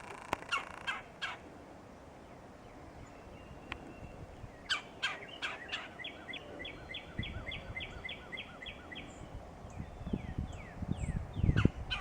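Woodpecker outdoors: a few sharp taps, then a steady run of about a dozen short repeated call notes, roughly four a second. A low rumbling noise builds and is loudest near the end.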